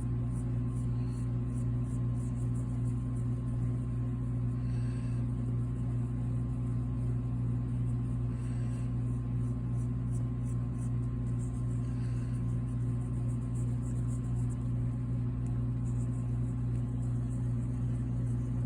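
Steady low electrical or mechanical hum, like a fan or appliance running, with faint light scratching of colour being laid on paper now and then.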